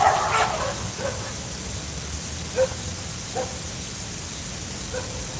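Several dogs barking: a burst of barks at the start, then single barks every second or so, over a steady hiss.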